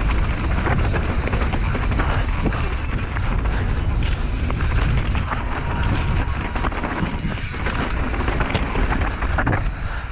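Wind buffeting the microphone with a steady low rumble, mixed with constant clicking and rattling from a downhill mountain bike running fast over rough trail.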